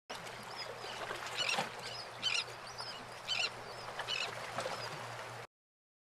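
Birds calling: a harsh call repeated about four times, roughly once a second, with fainter short chirps between, over a low steady hum; it cuts off abruptly near the end.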